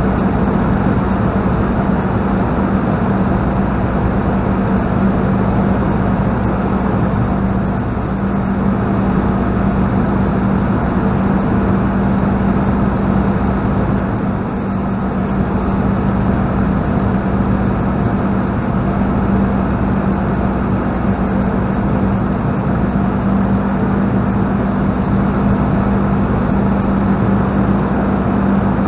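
Two-seat Spitfire's V12 piston engine and airflow heard from inside the cockpit in flight: a loud, steady drone with a strong low hum. It dips slightly about eight and again about fourteen seconds in.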